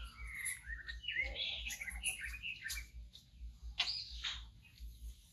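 Baby macaque giving a run of short, high squealing calls that glide up and down in pitch, the last one near the end the loudest and highest.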